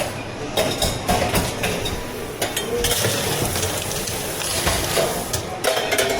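Drink-preparation clatter behind a tea-shop counter: repeated knocks and clicks of cups and utensils, with a stretch of steady hissing in the middle.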